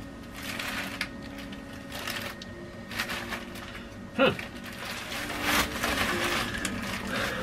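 Plastic wrapping of a pack of disposable diapers crinkling and rustling in repeated short bursts as the pack is opened and a diaper is pulled out. About four seconds in, a short sound slides steeply down in pitch.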